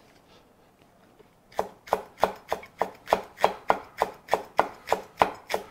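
Chef's knife finely shredding a rolled-up Korean green onion on a wooden cutting board: even knife strokes about four a second, starting about a second and a half in.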